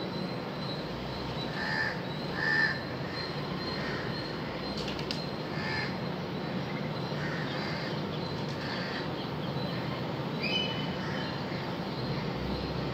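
Crows cawing, short calls every second or two, the loudest about two and a half seconds in, over steady background noise.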